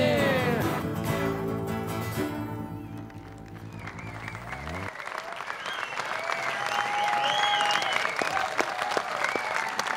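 Steel-string acoustic guitar's final strummed chord ringing out and fading, then an audience applauding from about five seconds in, with whistles and cheers, the clapping swelling.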